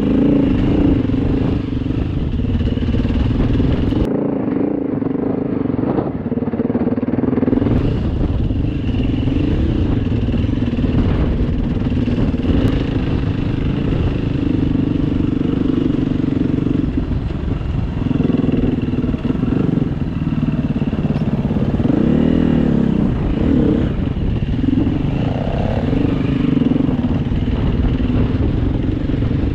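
Off-road motorcycle engine running under way on a rough grass track, its revs rising and falling with the throttle.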